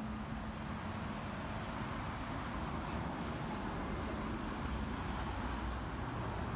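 Steady road traffic noise from passing vehicles on a town street.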